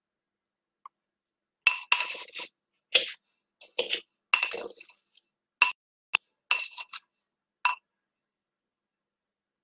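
Sugar being tipped and scooped from a container into a bowl on kitchen scales: a run of about ten clinks and scrapes, several with a short ringing note.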